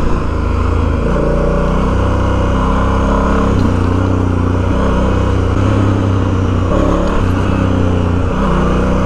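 Adventure motorcycle engine running at low speed, its pitch stepping up and down several times as the throttle is opened and closed.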